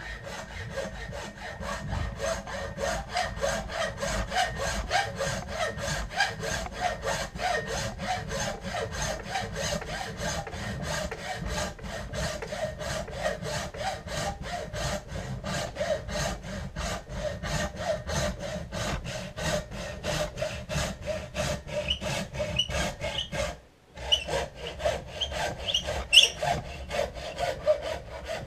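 Hand saw cutting through antler clamped in a vise, in steady rapid back-and-forth strokes, with one short pause near the end before the strokes resume.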